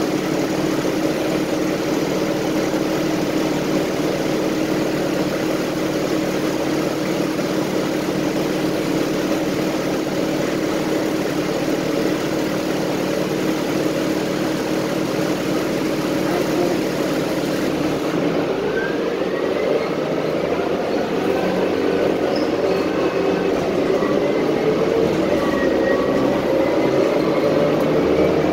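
City transit bus heard from inside the passenger cabin: a steady engine hum while the bus stands still, then about two-thirds of the way through it pulls away, the engine and transmission whine rising in pitch as it gathers speed.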